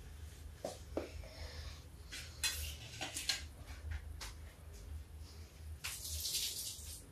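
Small knocks and clinks of kitchen bowls and utensils being handled on a counter, then a short spell of splashing water near the end.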